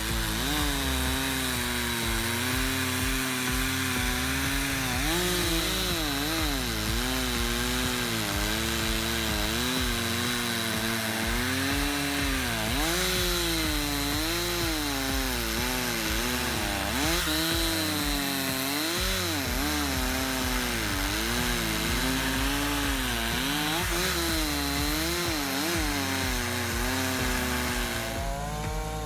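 Chainsaw running at high revs while cutting wood, its engine pitch repeatedly dipping under load and climbing back.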